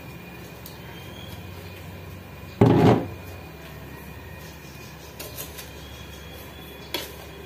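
A single heavy thump about two and a half seconds in, then a few light clicks of a metal spoon against a frying pan as coconut and brown sugar are stirred.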